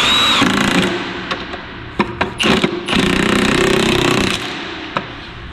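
Cordless impact wrench hammering as it drives down the bolts of a bench vise: a long rattling run at the start, two short blips about two seconds in, then another long run that stops about four and a half seconds in.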